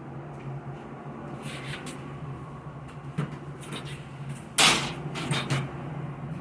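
An accordion shutter being worked, clattering: light clicks and rattles, then one loud clack about halfway through, followed by a few smaller clacks.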